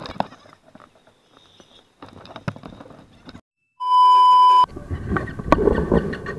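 A loud, steady electronic test-tone beep, the kind played with TV colour bars, cuts in abruptly for just under a second as an edit or censor effect. Around it are faint knocks and camera-handling noise.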